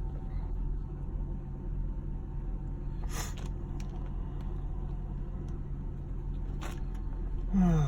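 Car engine idling, heard inside the stopped car's cabin as a steady low hum, with two brief rustling clicks about three and seven seconds in. Just before the end a short falling tone is the loudest sound.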